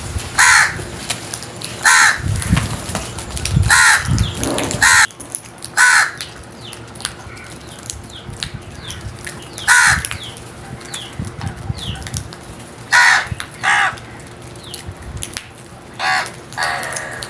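Crows cawing: about ten short, harsh caws, some in quick pairs, at irregular intervals.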